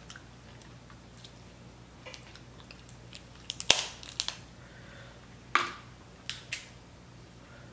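Cooked snow crab leg shells cracking as they are snapped open by hand: a quick cluster of sharp cracks about three and a half seconds in, the loudest, then a few more near the end.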